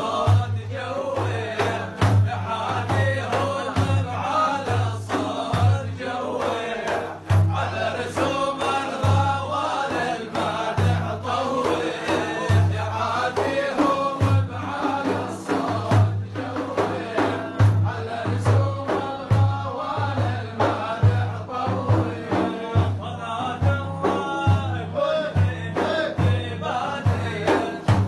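Arabic religious praise song (madih): a male voice singing a melodic line over a steady low beat.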